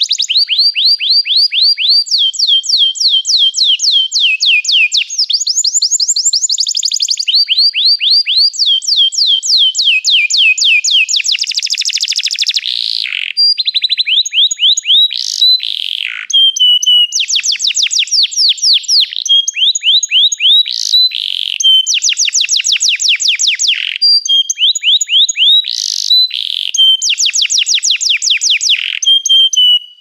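Domestic canary singing a long, continuous song of fast trills: runs of rapid repeated notes, about ten a second, switching to a new phrase every second or two, with a few sharper, louder high notes in the second half.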